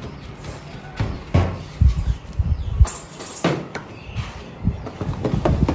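Irregular light knocks and dull thumps, with a few sharp clicks, as things are handled at a worktable.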